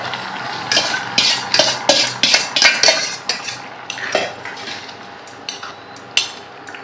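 A steel ladle stirring vegetables in a heavy black pan, clinking and scraping against the metal: quick clinks for the first three seconds, then only a few, one louder near the end.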